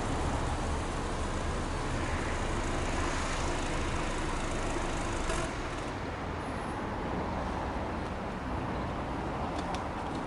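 Subaru Legacy Touring Wagon's 2.0-litre flat-four boxer engine idling steadily, heard at the tailpipe. The level dips slightly about five and a half seconds in, and a few light clicks sound near the end.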